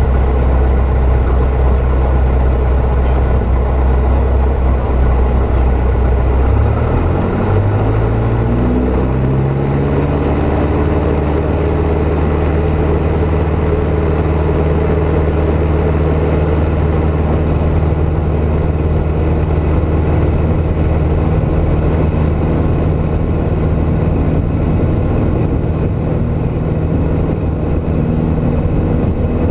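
Piper PA-28's piston engine and propeller heard from inside the cockpit, running at low power, then revving up smoothly over about three seconds a quarter of the way in and holding a steady higher power after that.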